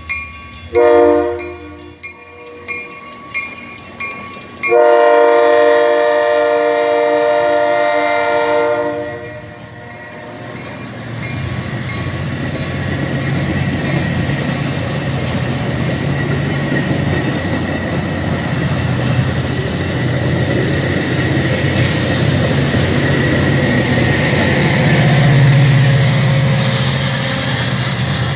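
Metra commuter train at a station: a bell dinging about every 0.7 s and a short train horn blast, then a long horn blast of about five seconds. After that the diesel locomotive and bilevel cars roll by, the engine rumble and wheel noise building and peaking as the locomotive passes near the end.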